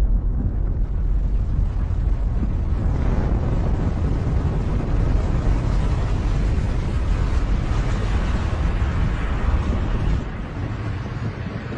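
Snowstorm wind blowing hard, buffeting the microphone with a steady low rumble and hiss; it eases somewhat about ten seconds in.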